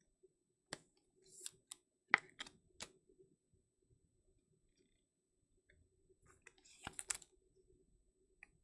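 Trading cards in rigid plastic toploaders clicking and clattering lightly as they are handled and stacked on a table: a few scattered clicks in the first three seconds and a quick cluster about seven seconds in.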